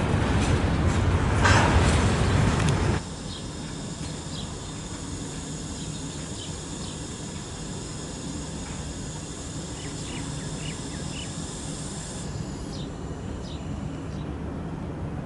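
Freight train hopper wagons rolling past close by with a loud, steady rumble and a brief louder screech about a second and a half in. About three seconds in this cuts abruptly to a much quieter steady hum from an approaching electric freight locomotive, with short high chirps scattered over it.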